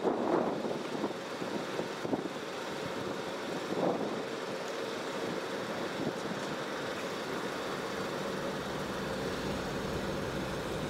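Steady road traffic noise with a faint steady hum, and wind buffeting the microphone in the first second or so.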